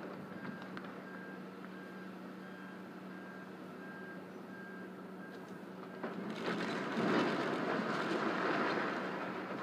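Reversing alarm on demolition machinery beeping about twice a second over a steady engine hum. About six seconds in, a louder rush of machinery noise swells up, then eases off near the end.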